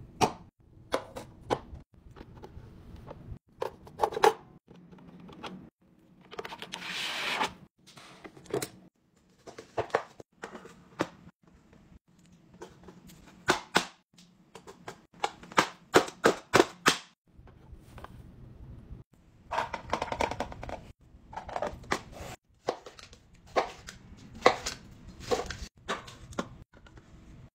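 Plastic kitchen gadgets handled on a countertop: a long run of sharp clicks, snaps and knocks, many in quick clusters, as a push-down vegetable chopper's lid is pressed through its blade grid into the container. There is a short rushing noise about seven seconds in.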